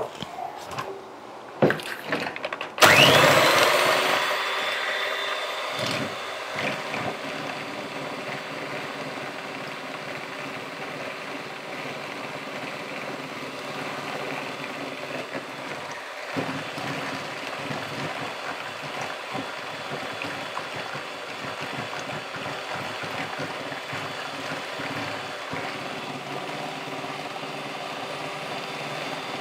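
A few knocks, then about three seconds in a Bosch electric hand mixer switches on, its motor whine rising quickly to speed. It then runs steadily as its beaters whisk a runny chocolate sauce in a bowl.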